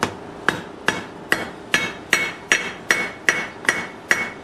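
Small hand hammer striking hot coil-spring steel on an anvil in a steady rhythm, about two and a half blows a second, each with a short ring; from about halfway a clear ringing note sounds with each blow. The smith is drawing the fork's tine down to a long cone.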